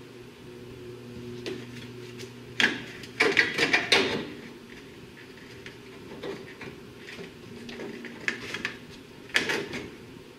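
Plastic radiator support cover being pushed and shifted into place on the front of a Toyota Camry, clattering and knocking against the body, with a dense run of knocks about three to four seconds in and more a few seconds before the end.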